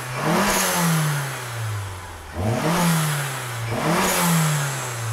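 Turbocharged Mazda Miata four-cylinder engine free-revving with the hood up: three quick throttle blips, each rising fast and sinking slowly back toward idle, with a hiss that swells on each blip.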